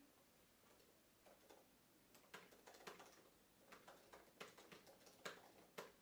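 Quiet typing on a MacBook laptop keyboard: irregular key clicks, a few at first, then quick runs of keystrokes through the second half.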